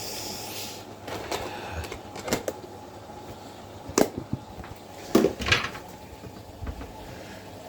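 Household cleaning products being moved about in a cupboard: a brief rustle at the start, then scattered knocks and clatters, the loudest about four and five seconds in.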